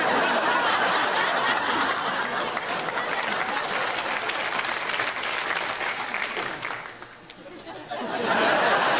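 Studio audience laughing and applauding, dying away about seven seconds in, then rising again briefly near the end.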